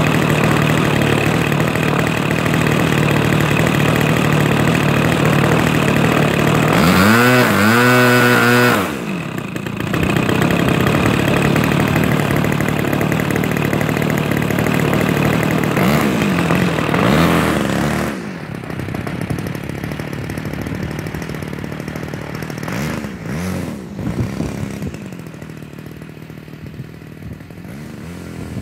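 Ultra Stik RC airplane's 33cc two-stroke gas engine and propeller running steadily, with the throttle swept up and back down about seven seconds in. From about eighteen seconds in, the engine grows fainter with repeated rises and falls in pitch as the plane moves away.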